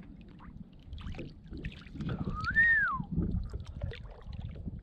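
Water sloshing and lightly splashing at the side of a kayak as a bass is held in the water by its lip to be revived before release. About halfway through, a single whistle-like tone rises and then falls in pitch.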